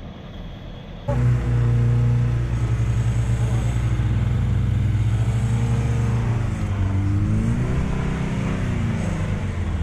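Opel Frontera's engine pulling hard as the car drives through deep mud. The engine note holds steady, then rises and falls several times in the second half as the driver works the throttle.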